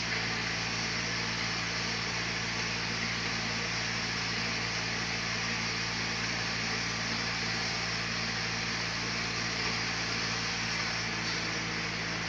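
Sawmill machinery running steadily: a constant low motor hum under an even hiss, with no change in pitch or level.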